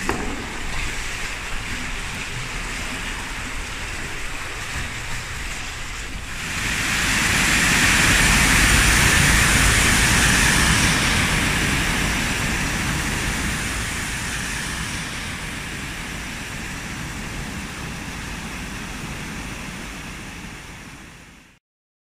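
Steady rush of flowing river water. From about six seconds in comes the louder rush of water pouring over a weir, which slowly dies down and fades out near the end.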